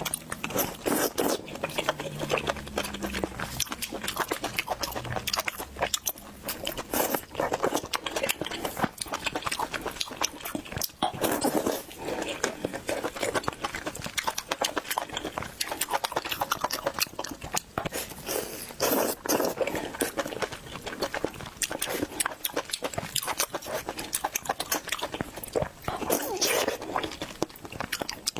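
Close-miked eating sounds: wet slurping, lip smacks and chewing, irregular and continuous, as the host of a mukbang eats.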